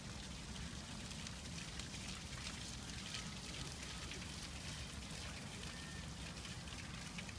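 Fountain water splashing into its stone basin, a steady patter, with a low rumble underneath.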